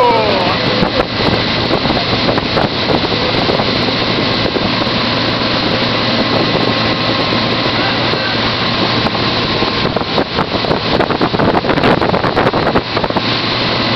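Motorboat engine running steadily while pulling a wakeboarder, with water rushing in the wake and wind buffeting the microphone, the buffeting heavier near the end.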